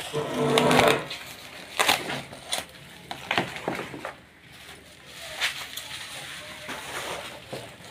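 Clear plastic wrapping on a new fishing rod crinkling and crackling as it is handled and pulled off, with a louder rustle near the start and sharp crackles every second or so.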